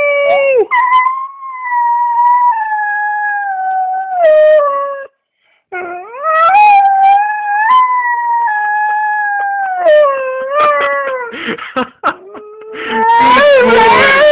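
German Shorthaired Pointer howling: two long howls of several seconds each, the pitch sliding slowly down, then a run of short whimpering cries and a louder, rougher howl near the end.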